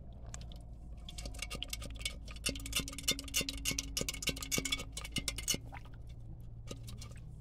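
A rapid, irregular run of sharp clicks and taps lasting about four and a half seconds, with a faint steady hum under part of it.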